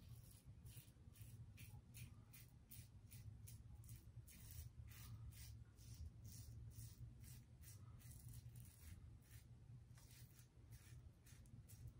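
Brass Aylsworth Kopparkant safety razor with its standard plate and a Gillette 7 O'Clock Sharp Edge (yellow) blade cutting through lathered stubble. The strokes are short and faint, with a scratch about two or three times a second.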